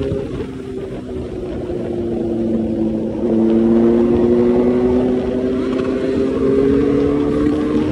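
Motorcycle engine running at speed, its pitch climbing slowly as it pulls. It dips about three seconds in, then climbs again. A low wind rumble sits under it.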